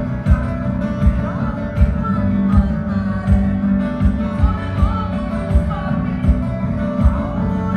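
A rock band playing through the stage PA during a soundcheck: guitars and bass over a steady low beat, with a voice singing.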